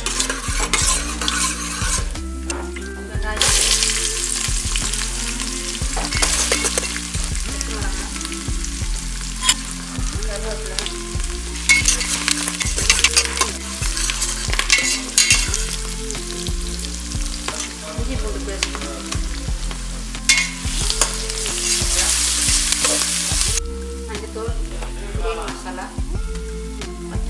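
Shallots, green chillies and whole spices sizzling in sesame oil in a stainless steel pressure cooker, with a metal spoon stirring and scraping against the pot. The sizzling grows loud a few seconds in and dies down a few seconds before the end.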